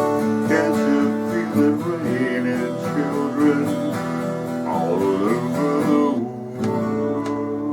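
Acoustic guitar playing the closing bars of a slow song, with a last strummed chord about six and a half seconds in that is left to ring.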